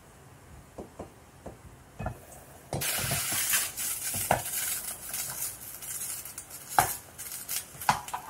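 Chicken adobo cooking in a pan: a loud sizzle starts about three seconds in and keeps on, with a spoon or lid clinking against the pan a few times.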